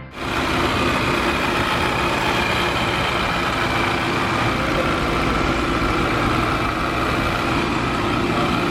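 Engine idling steadily, a constant hum with a few held tones and no revving.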